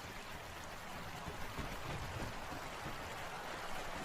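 Running water, a steady even rushing flow.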